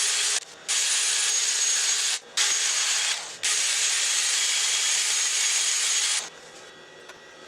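Yew blank spinning on a wood lathe with a tool cutting or working its surface: a loud, steady hiss that breaks off abruptly three times for a moment and drops away about six seconds in.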